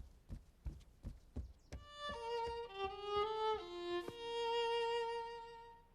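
Background cartoon score: a run of short tapped notes at about three a second, then a violin melody of held notes that steps between pitches and ends on one long note.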